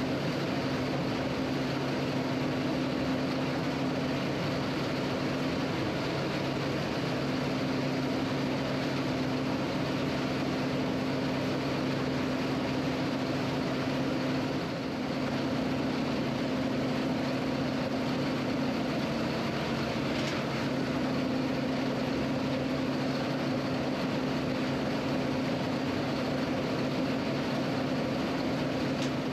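Potato harvesting machinery, the harvester and the tractor working it, running steadily with a constant engine drone.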